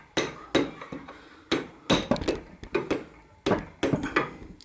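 Hammer blows on a steel rod, driving the rear axle out of a 2002 Harley-Davidson Road King Classic's rear wheel: about eight sharp metallic knocks in irregular groups.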